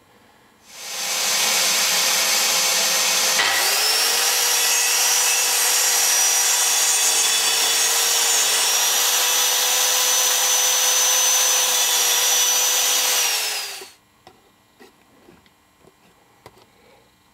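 Budget plunge/track saw with a 48-tooth Trend Craft Pro blade starts up about a second in and cuts through wood for about thirteen seconds. Its motor pitch dips briefly at about three and a half seconds and then holds steady. It falls away as the saw stops.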